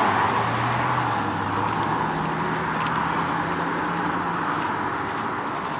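Car driving: steady road and engine noise with a low hum.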